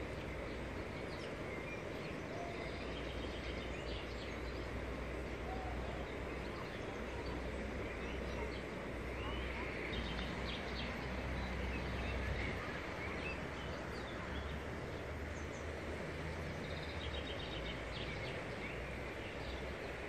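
Steady rushing of a flowing river, with a few faint bird chirps here and there.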